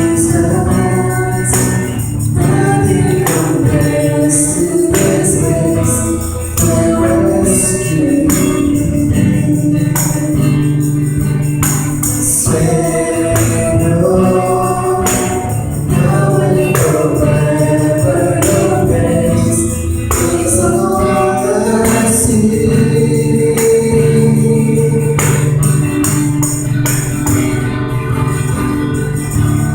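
Church music group playing a gospel song during a sound check, with singing voices, a steady bass and a tambourine shaken throughout.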